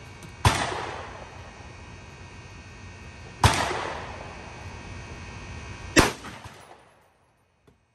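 Ruger SFAR semi-automatic rifle fired three times, single shots about three seconds apart, each loud report trailing off in an echo.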